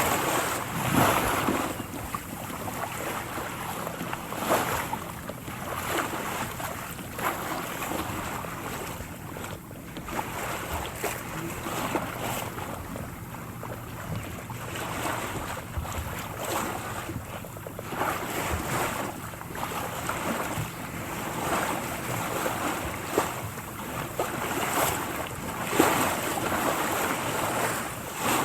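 Water sloshing and lapping, with soft swells of splashing every few seconds.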